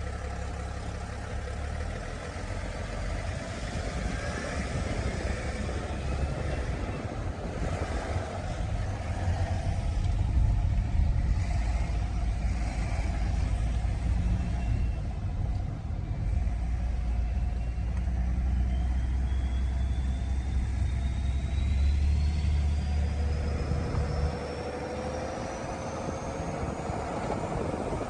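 BMW 635d's M57 3.0-litre twin-turbo straight-six diesel pulling on the road, with a low engine drone and a turbo whistle that rises steadily in pitch over the second half. The low drone eases about three-quarters of the way through. It sounds like a hair dryer, which the owner puts down to the empty DPF casing after the filter's removal, the turbos being freshly rebuilt.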